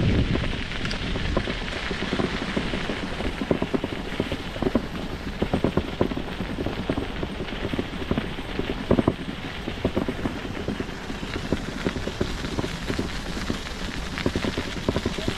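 Bicycle tyres rolling over a path spread with crushed-stone winter grit: a steady crunching hiss with many small irregular crackles and pops as stones are pressed and flicked by the tyres.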